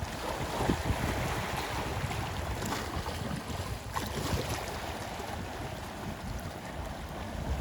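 Sea waves washing on a shore, a steady surging rush, with wind rumbling on the microphone.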